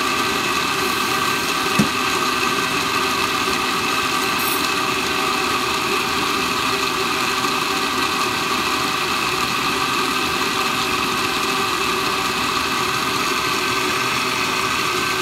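Oster glass-jar blender's motor running steadily at speed, pureeing tomatillo salsa, with a brief thump about two seconds in.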